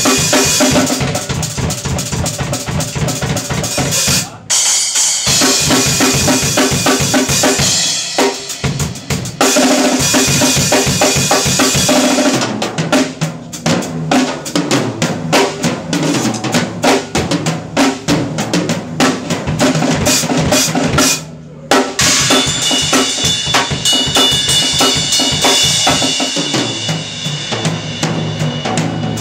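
Drum solo on a Pearl acoustic drum kit: rapid bass drum, snare and cymbal strokes, broken by two short stops, about four seconds in and about twenty-one seconds in. After the second stop, cymbals ring on under the strokes.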